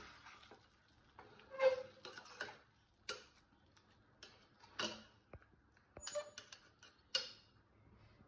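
A metal ladle stirring cooked chicken chukka in a pressure cooker pot: scattered light clinks and scrapes of metal on the pot, about one every second or so.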